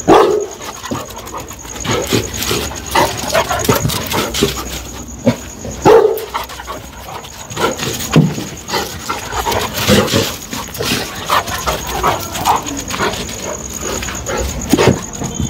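Dogs barking in quick, irregular bursts, with the loudest barks at the start, about six seconds in, around ten seconds and near the end.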